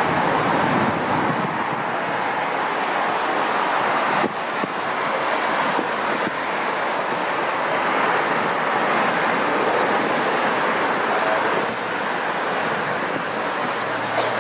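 Jet engines of an Airbus A380 running at low taxi power: a steady, even rushing noise, with a faint knock about four seconds in.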